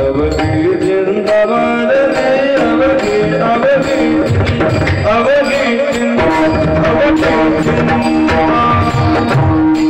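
Marathi kirtan: male voices singing a devotional melody together, over drum beats and the clinks of small hand cymbals.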